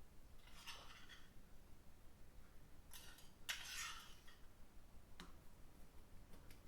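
Faint rustling and scraping of ground coffee being spooned into an AeroPress, in short bursts, with a couple of light clicks of the spoon.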